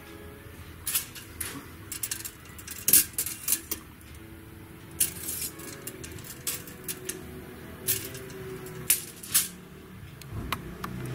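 Irregular sharp clicks and clinks, a dozen or so spread unevenly, from hands-on upholstery work lashing the springs of an antique Voltaire chair, over faint background music.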